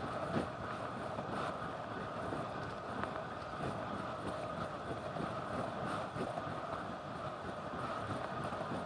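Steady rush of wind and tyre rumble on asphalt from a road bike riding along the road, heard on a camera mounted on the bike, with a few faint knocks from bumps in the surface.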